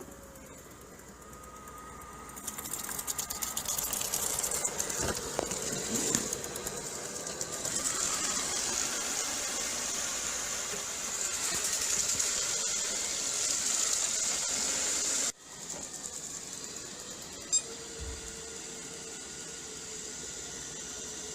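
ILIFE robot vacuum cleaner running: a steady whirring motor with a high hiss. An abrupt cut about 15 seconds in changes it to a quieter, steadier hum with one sharp click.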